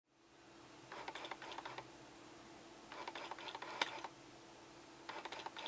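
Three short bursts of rapid light clicking, each lasting about a second, over a steady faint hum.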